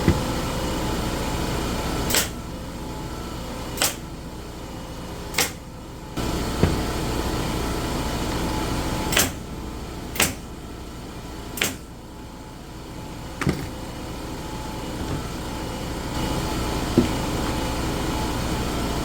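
A steady machine hum with about eight sharp clicks or knocks at irregular intervals, from hand work close by.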